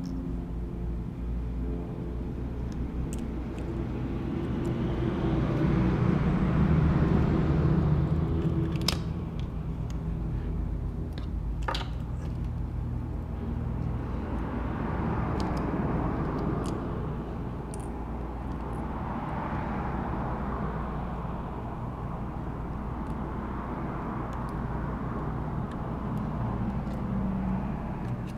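Vehicles passing in the background, each swelling and fading in turn, over a steady low hum. Two sharp small clicks come about 9 and 12 seconds in.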